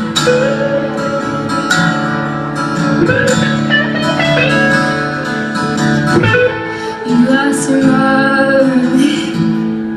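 Live band playing a song's instrumental opening, led by guitar, with melodic lines sliding over a steady chordal backing.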